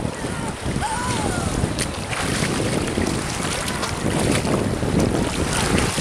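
Sea surf washing around in shallow water with wind buffeting the microphone; near the end, splashing as someone plunges into the water.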